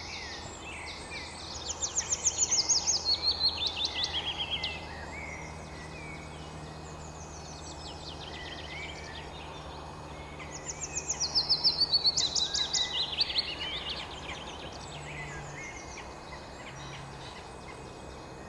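Songbirds singing in the dawn chorus: twice a loud song of rapid notes cascades down in pitch over about three seconds, with quieter chirps from other birds in between.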